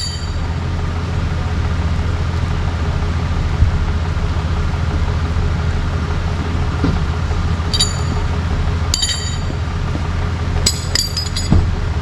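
A vehicle engine idling steadily with a low hum. Sharp metallic clinks ring out twice partway through, then several in quick succession near the end, with a single dull thump before them.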